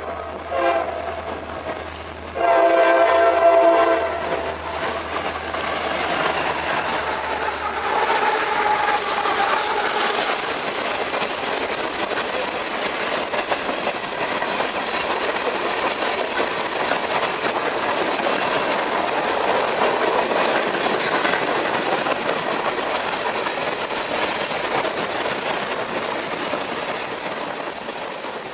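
A CSX GE AC44CW diesel locomotive's air horn gives a short blast, then a louder, longer blast a couple of seconds in. The freight train then rolls past, its wheels clattering over the rail joints, and the sound fades near the end.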